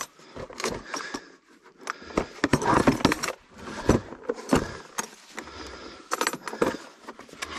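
Hard plastic compression tester case being handled: irregular clicks, knocks and rattles of the case and the metal fittings loose inside it.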